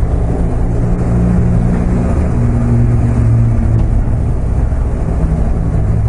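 BMW R 1200 RT's flat-twin engine running while riding, with road noise; the engine note shifts slightly as the pace changes.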